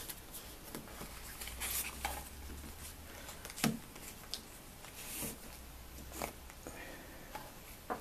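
Quiet handling noises: a cardboard flip-top cigarette packet being opened and a slim metal lighter drawn out of it, with scattered soft taps and rustles. The loudest is a single tap about three and a half seconds in.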